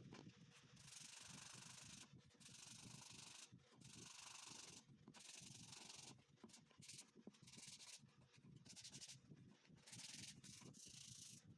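Faint sandpaper rubbing on MDF by hand, in a series of back-and-forth strokes of about a second each.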